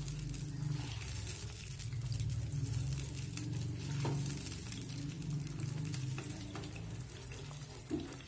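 Wooden spatula stirring chilies and garlic around in salted water in a non-stick frying pan, scraping lightly over the pan's bottom, over a low steady hum. The stirring dissolves the salt before the liquid comes to the boil.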